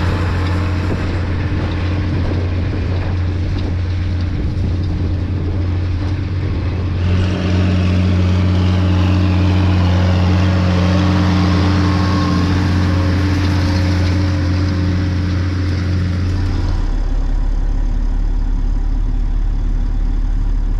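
Tractor engine running steadily. Its note shifts about seven seconds in, and about seventeen seconds in it drops to a lower, deeper hum.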